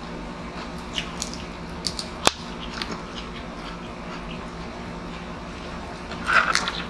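Seafood being eaten and shelled: scattered sharp clicks and crunches of shells cracking and chewing, the loudest a single click about two seconds in and a short cluster near the end, over a steady low hum.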